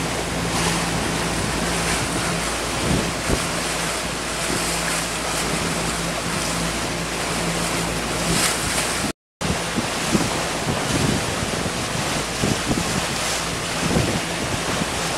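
Wind rushing over the camcorder microphone on a moving motorboat, with the boat's engine giving a steady low hum under it for the first eight seconds or so. The sound drops out briefly about nine seconds in, then the wind rush carries on with gusty thumps.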